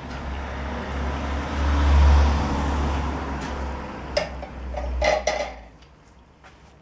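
A road vehicle going past: a low rumble with a hiss that swells to its loudest about two seconds in and fades away by about five and a half seconds. A few light clinks and knocks come near the end.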